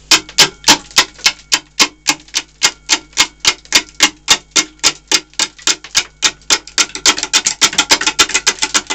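Turning tool taking an interrupted roughing cut on an out-of-round green log spinning on a wood lathe at about 216 rpm: a loud knock each time the high side comes round, about four a second. The knocks come thicker near the end as more of the surface is cut.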